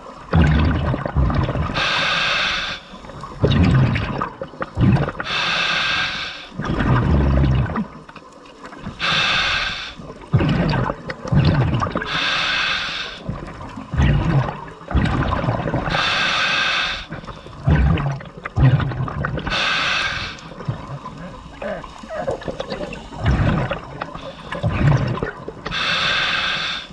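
Scuba diver breathing through a regulator underwater: a hiss on each inhale, then a rumbling gush of exhaled bubbles, repeating about every three to four seconds.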